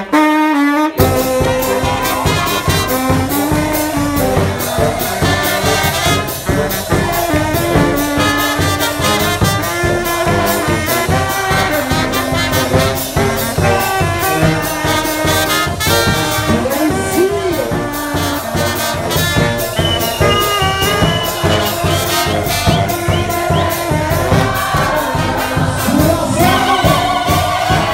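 Live brass band playing a fast dance tune: trumpets and saxophone carry the melody over a tuba bass line, driven by a steady bass drum and cymbal beat. The music drops out briefly just after the start, then runs on without a break.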